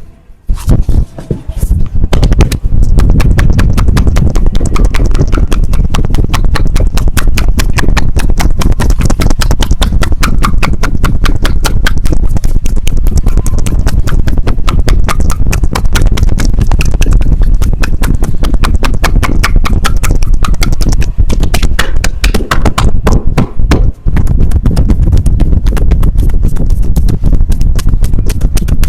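Rapid hand strikes on a person's back in a fast percussive massage, many slaps a second without let-up, with a brief break near the end.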